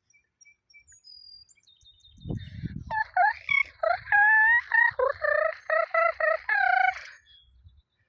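Domestic fowl calling: faint high chirps at first, then from about three seconds in a run of loud, short repeated calls that stop about a second before the end.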